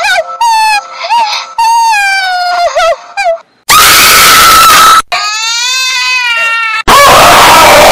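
High-pitched cartoon crying sound effects, wailing sobs that rise and fall. About four seconds in, a loud, harsh jump-scare scream cuts in. The crying resumes briefly, and a second harsh scream starts near the end.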